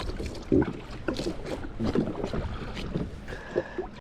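Water slapping against a drifting jet ski's hull, with wind on the microphone and scattered irregular knocks and clatters.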